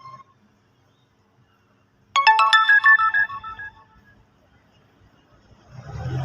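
A short electronic jingle of quick clean notes stepping downward, lasting about a second and a half. Near the end a low hum comes in.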